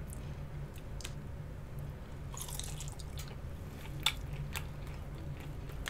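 Close-miked eating: small wet mouth clicks and a short crunchy rustle of chewing and biting into breaded chicken wings, over a low steady hum.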